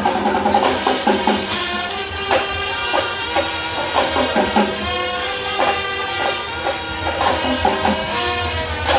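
Marching band playing: drums beating under wind instruments holding notes.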